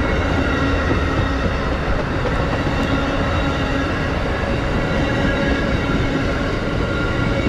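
Amtrak Amfleet II passenger coaches passing close by at speed: the steady rolling noise of steel wheels on rail, even in loudness throughout.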